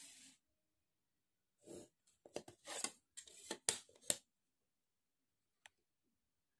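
Drafting tools scraping on paper: a handful of short, faint strokes between about two and four seconds in, then a couple of light ticks.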